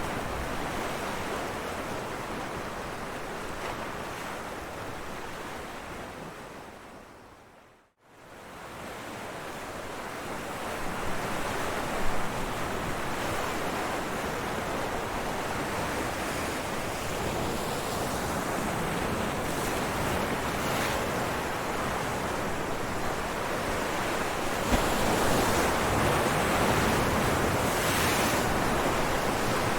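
Ocean waves surging and washing over rocks: a steady rushing wash. About eight seconds in it fades out to near silence and fades back up, with one brief sharp splash a few seconds later. The surf grows louder near the end.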